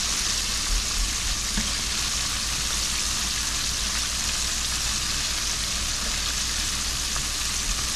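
Frog legs deep-frying in hot oil, with a steady crackling sizzle and a low rumble underneath. The first batch is almost done.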